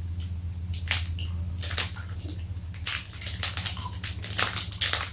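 Eating a plastic-wrapped fish-shaped ice cream wafer sandwich: a dense run of close crackles and chewing noises from about a second in, over a steady low hum.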